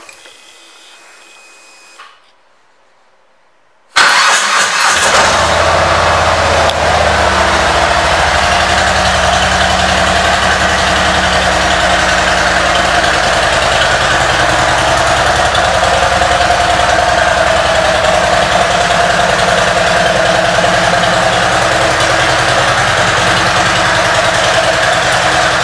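2017 Harley-Davidson Street Glide Special's Milwaukee-Eight V-twin, fitted with a Rinehart aftermarket exhaust and Screaming Eagle intake, starting about four seconds in and then idling steadily.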